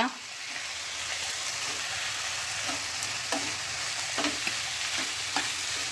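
Sliced onions with green chillies and ginger-garlic sizzling steadily in ghee and oil in a frying pan, while a spatula stirs them, with a few light scrapes and taps against the pan in the second half.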